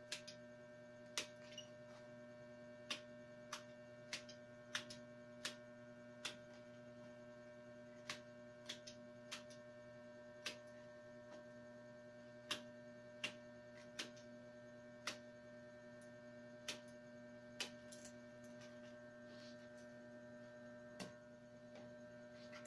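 Sharp single clicks at irregular intervals, roughly one a second, as the protruding ends of wicker strands are cut off at the rim of a woven round tray basket with a cutter, over a steady hum.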